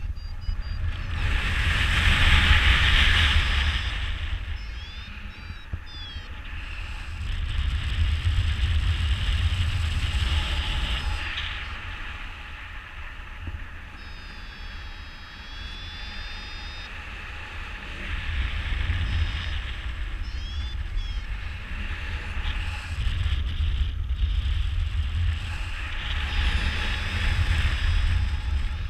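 Wind rushing and buffeting over an action camera's microphone on a paraglider flying wingovers, swelling and fading several times as the glider swings through the turns.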